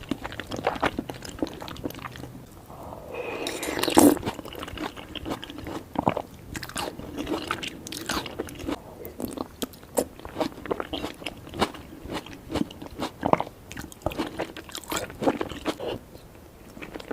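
Close-miked ASMR eating: a person biting and chewing a mouthful of spicy cheesy soup and soft-boiled egg, with many short mouth clicks and a louder bite about four seconds in.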